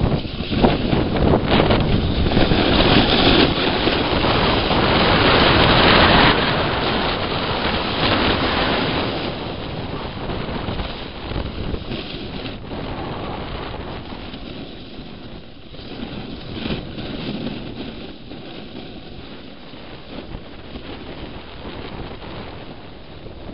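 Gusty wind buffeting the camera microphone, loud for the first several seconds and easing off after about ten seconds.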